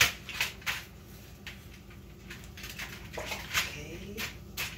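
Irregular sharp clicks and crinkles, about a dozen, loudest at the start, as baked pork hocks are handled and shifted on an aluminium-foil-lined tray.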